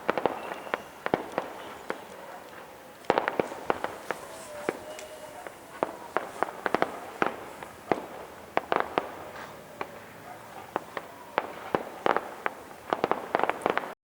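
Small fireworks going off: many sharp, irregular pops and cracks, some in quick clusters. The level jumps about three seconds in, and the popping cuts off abruptly near the end.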